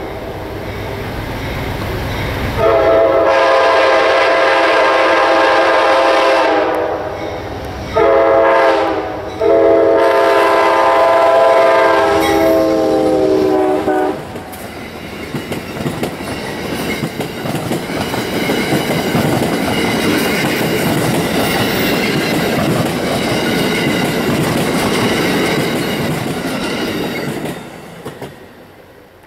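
Amtrak GE P42DC diesel locomotive's air horn sounding the end of the grade-crossing signal: a long blast, a short one and a final long one, as the train comes at speed. The passenger cars then rush past with wheels clattering over the rail joints, and the noise fades away near the end.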